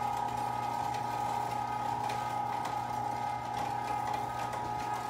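A 1-horsepower Carnivore electric meat grinder running steadily with a constant motor hum while it grinds raw meat and organs, with faint scattered clicks.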